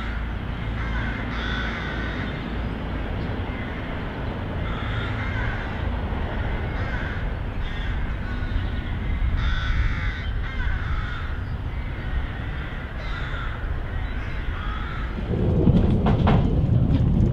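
Birds giving harsh calls again and again, one every second or two, over a steady low rumble. Near the end this gives way to the louder rumble of a Snaefell Mountain Railway electric tram running, heard from inside the car.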